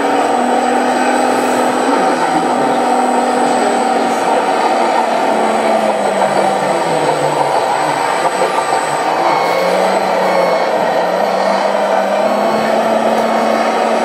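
1/14-scale RC Komatsu D65 bulldozer running, its sound system giving a diesel engine note over the hum of its drive, with the pitch dipping in the middle and rising again near the end as the throttle changes.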